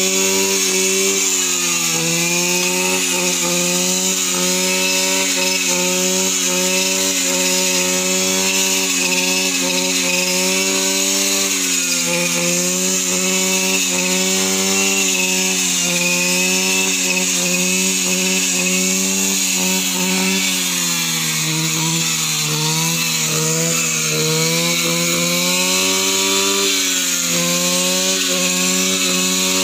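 Two-stroke brush cutter running at high revs while cutting weeds. Its engine note sags briefly several times as the blade takes load and then picks back up, with the longest dip about three-quarters of the way through.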